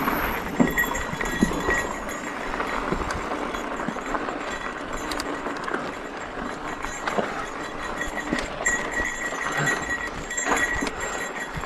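Mountain bike rolling along a dirt singletrack: a steady rush of tyre and wind noise with frequent small rattles and knocks from the bike over the bumps.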